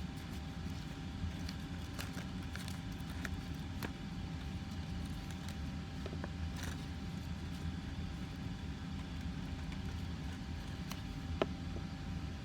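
Steady low background hum with a faint thin tone, and a few soft clicks and rustles of origami paper being handled and pressed together.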